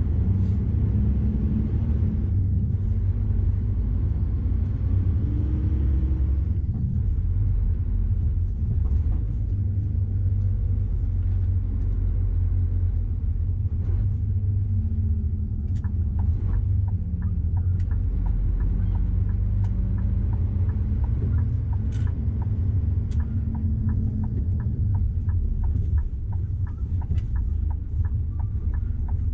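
2013 Scania R440 truck's straight-six diesel running under way, a steady low rumble heard inside the cab. From about halfway through comes a regular ticking of the turn indicator.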